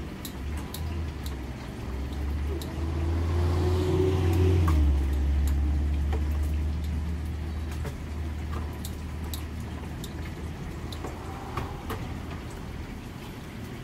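Kitchen shears snipping and tongs clicking as whole fried chickens are cut up on a wire rack, short sharp clicks scattered throughout. Underneath runs a steady low rumble that swells about three to five seconds in.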